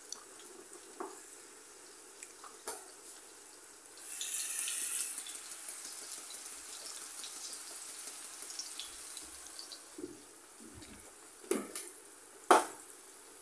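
Liquid poured into a hot frying pan of sliced mushrooms: a burst of high hissing for about a second, about four seconds in, then a faint steady hiss. A few sharp knocks of cookware, the loudest just before the end.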